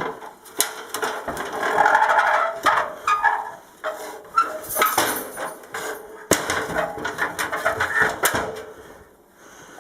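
Objects being moved and set down by hand: a run of knocks, clunks and scrapes, with a cluster of sharp hits around five seconds in and again between six and eight and a half seconds in.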